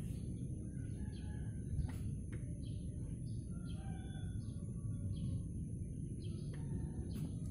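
Small birds chirping in short, repeated calls over steady low background noise.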